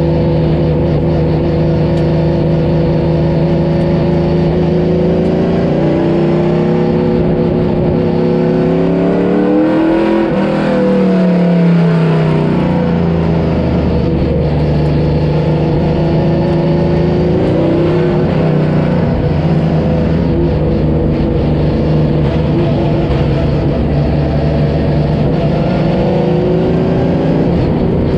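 A motor vehicle's engine running steadily, rising in pitch about ten seconds in and dropping back a couple of seconds later.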